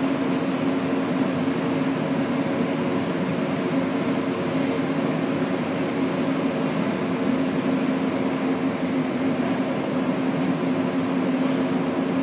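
Montreal Metro rubber-tyred train running at speed through a tunnel, heard from inside the car: a steady rumble with a constant low hum.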